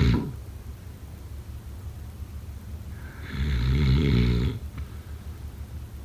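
Snoring: the tail end of one snore at the very start, then one long, loud, fluttering snore about three seconds in, lasting about a second and a half. A low steady hum runs underneath.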